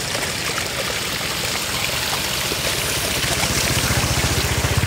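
Floodwater running steadily. A low, fast throbbing underneath grows louder toward the end.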